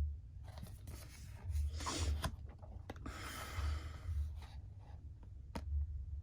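Oracle cards rubbing and sliding against each other as they are handled and turned over, in two soft rustling stretches with a few light ticks and a low rumble underneath.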